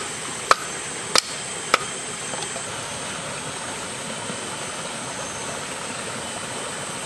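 A wooden baton knocks three times on the spine of a kukri, driving the blade into a stick, within the first two seconds. After that only a steady rush of stream water.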